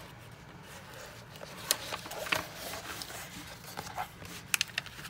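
Clear plastic cover film on a diamond-painting canvas crinkling and crackling as it is handled and peeled back from the sticky canvas, with a few sharp snaps in the middle and a quick cluster near the end.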